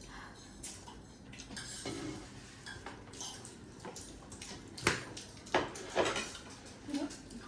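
Eating utensils clinking and scraping against a bowl during a noodle meal. Scattered light clicks, with three sharper knocks about five to six seconds in.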